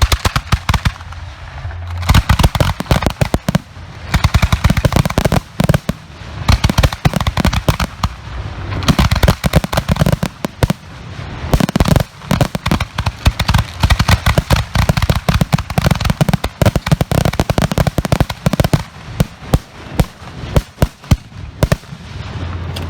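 Professional aerial fireworks finale: a rapid barrage of overlapping shell bursts, sharp booms and crackle, with brief lulls now and then.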